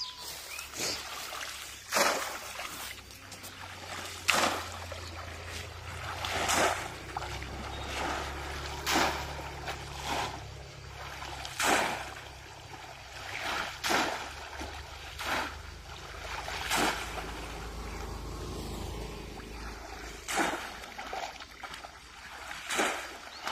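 Water splashing as a small hand-held basket is plunged again and again into a shallow pond, a sharp splash about every one to two seconds.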